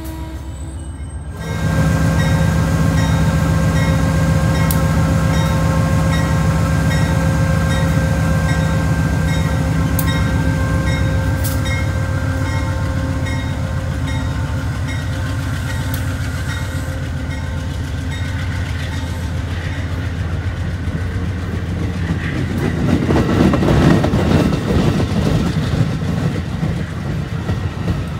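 Shore Line East push-pull passenger train pulling out under diesel locomotive power: a steady engine hum over the rolling noise of the coaches, swelling to a louder rush of wheel noise a little over three-quarters of the way through.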